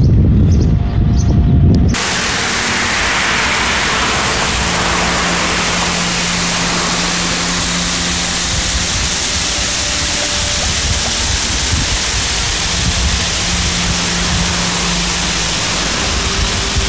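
Wind buffeting the microphone for about two seconds, then a steady rush of water streaming down a rock wall and splashing into a channel below.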